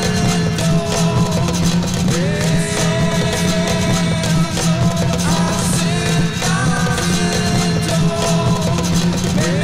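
Layered looped music from a live loop-pedal performance: singing and instruments repeating the same phrase about every three and a half seconds, each pass opening with a rising sung glide.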